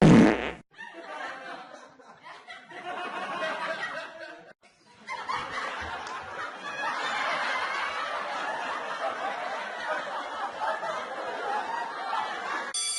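A short, loud thump, then a group of people laughing and snickering; after a brief break about four and a half seconds in, the laughter comes back fuller and louder and cuts off suddenly near the end.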